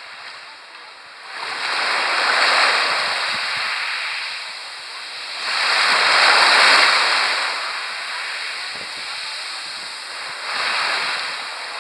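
Sea waves washing onto a pebble beach: three swells of surf, each rising and falling away, about four seconds apart, the middle one loudest.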